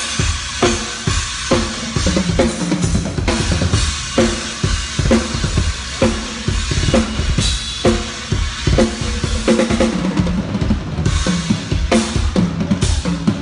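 Acoustic drum kit played in a steady busy groove, kick drum and snare under a constant wash of cymbals, with several louder cymbal crashes in the second half.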